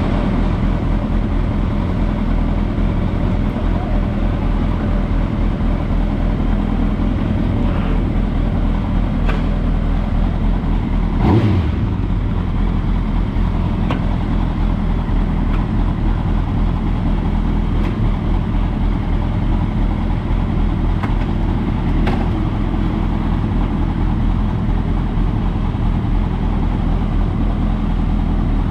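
Motorcycle engine running steadily at an even pitch, with a brief knock about eleven seconds in.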